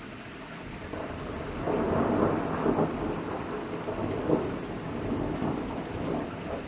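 Rolling thunder over steady rain. The rumble builds about a second in, is loudest around two seconds in, then rolls on in several swells and eases off near the end.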